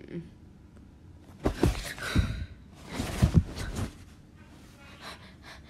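A person's breathy gasps mixed with a few sharp thumps as he scrambles out of bed in a hurry. The sound comes in two loud bursts, one about a second and a half in and one about three seconds in, with quicker, fainter rustles near the end.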